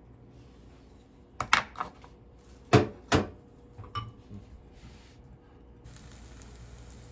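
Kitchenware knocking and clattering: several sharp knocks of dishes or utensils being handled, the loudest two close together in the middle, then a few lighter clicks. A faint steady hiss begins near the end.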